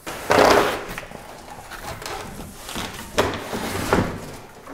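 Large cardboard shipping box being handled, its flaps and packing pushed and pulled in scraping, rustling bursts: a loud one just after the start and two shorter ones about three and four seconds in.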